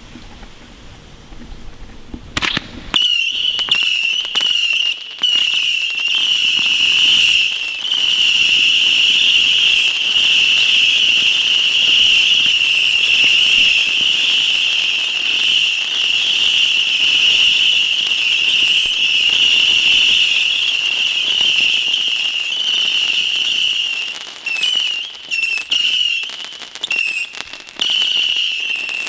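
Whistling fireworks: a sharp crack, then a shrill, unbroken whistle that goes on for over twenty seconds. Loud cracks and pops run under it, and near the end the whistle breaks into short bursts between bangs.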